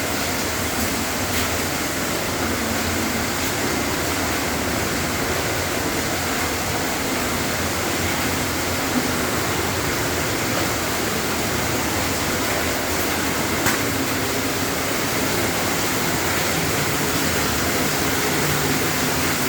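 Waterfall inside a mine, a steady rush of falling water, with a couple of faint clicks partway through.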